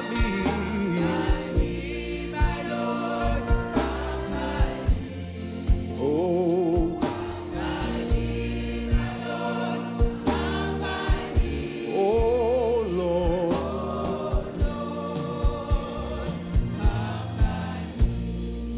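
Gospel song: a man's solo voice singing long held notes with a wavering vibrato into a microphone, over sustained accompaniment chords and sharp percussive beats.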